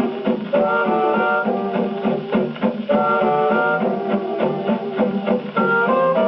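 1930s dance band record played on a gramophone, in an instrumental passage: held melody notes over a steady strummed rhythm.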